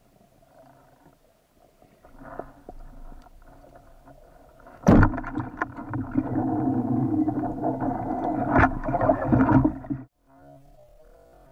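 Band-powered speargun fired underwater: a sharp snap about five seconds in, followed by several seconds of loud underwater churning and rumbling with a second sharp knock a few seconds later. The sound cuts off abruptly near the end.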